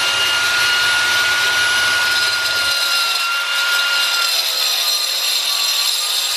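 Corded angle grinder running with a steady high whine as it cuts through cast iron drain pipe; the whine sags a little in pitch about four seconds in as the disc takes load.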